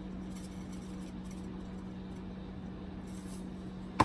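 Spice containers and a measuring teaspoon being handled: a few faint light taps over a low steady hum, then one sharp click near the end.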